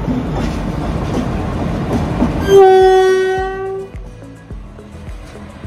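Rumble of a train running slowly, then a locomotive horn sounds one loud, steady blast of a little over a second about midway. The rumble carries on more quietly afterwards.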